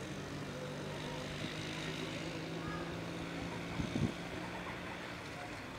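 Distant diesel locomotive engine running with a steady low drone as the train approaches. About four seconds in there is a brief cluster of low thumps.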